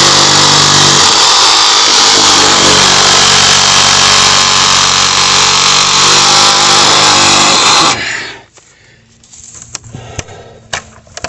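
Hart 20-volt cordless reciprocating saw running at full speed, sawing through a sapling stem with a blade the user thinks is a little dull. It stops abruptly about eight seconds in, and light clicks and crackles follow.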